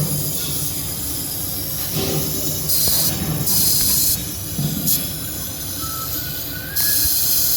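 Handheld fibre laser welder (Jasic LS 15000F) welding a stainless kitchen sink: loud hiss of shielding gas at the torch, starting and stopping sharply in three bursts as the trigger is worked, the last lasting over a second, over a steady background hiss.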